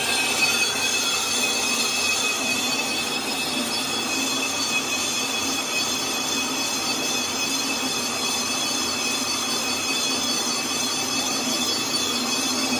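Metal lathe turning a cast-iron truck brake drum, the cutting tool machining the drum's rim face. It gives a steady, high-pitched ringing tone over the noise of the cut.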